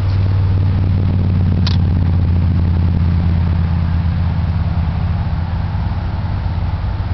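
A steady low engine hum that eases slightly near the end, with a brief high-pitched sound about a second and a half in.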